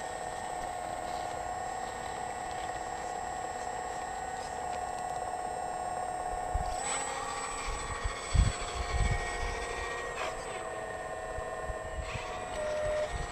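Hydraulic pump of a radio-controlled model Liebherr 946 excavator whining steadily as the boom and bucket work, its pitch shifting about seven seconds in as the load changes. A few low thumps come about eight to nine seconds in.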